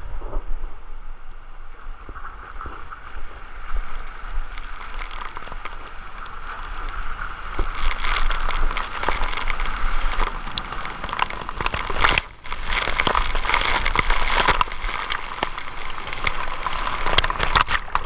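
Water rushing and splashing around a rider sliding down a water slide, heard up close from a rider-worn camera. The rush grows louder about halfway through and briefly drops away about two-thirds of the way in.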